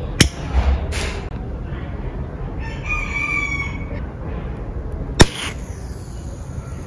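Two sharp clicks from a lighter-built match launcher: a light one just after the start and a much louder snap about five seconds in as it fires a match into the fruit. A rooster crows in the background around the middle.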